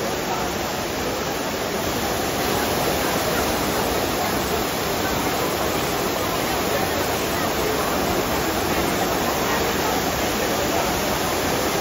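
The Trevi Fountain's water cascading over its rockwork into the basin: a steady rushing of falling water, with a crowd's voices murmuring under it.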